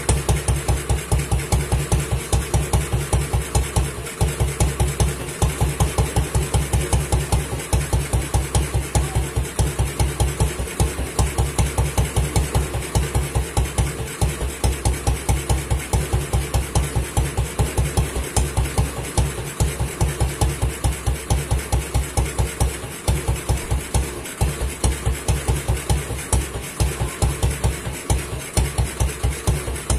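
Classic BSA British motorcycle engine idling, its exhaust beating steadily at about five or six pulses a second, with a beat dropping out now and then.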